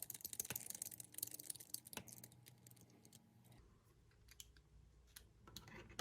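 Faint, quick light clicks and ticks of a small hex driver and tiny metal parts being worked as the bigger screw holding the motor to the motor plate of a 1/24-scale RC crawler is backed out. The clicks are thickest in the first three seconds and sparser after.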